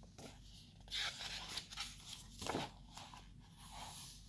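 Paper pages of a picture book being handled and turned: a few soft rustles and scrapes of paper.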